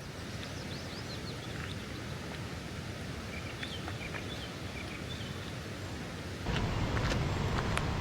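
Steady rush of flowing river water with a few faint, brief bird chirps. About six and a half seconds in, the sound abruptly grows louder and deeper, with a few sharp clicks near the end.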